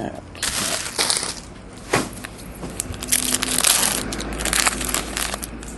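Foil wrapper of a 2008 Bowman Chrome baseball card pack crinkling and tearing as it is pulled open by hand, in several crackling bursts.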